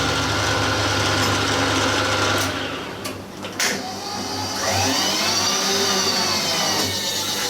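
Milling machine running through a cut. Its steady hum changes about two and a half seconds in, there are a couple of sharp knocks around three seconds, and then a running sound that rises and falls in pitch.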